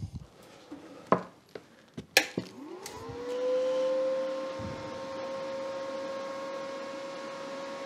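A few clicks, then the R-Tech 180 A inverter MIG welder is switched on with a sharp click about two seconds in. Its cooling fan spins up with a quickly rising whine that settles into a steady hum.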